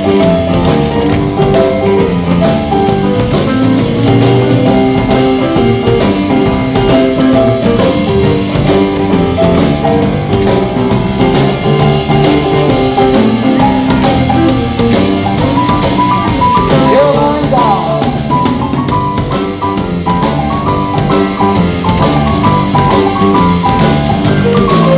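Live roots band playing an instrumental break in an up-tempo blues number: a drum kit keeps a steady beat under a melodic solo, with sliding notes about two-thirds of the way through.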